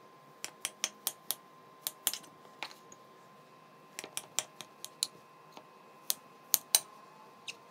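Kitchen knife pressed down through a cocoa sponge cake, its blade tapping the plate underneath with each cut: a series of sharp, irregular clicks, loudest a couple of times near the end.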